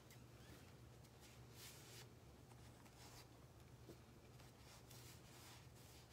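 Near silence: room tone with a steady low hum and faint, soft rustles of hands handling sheets of material.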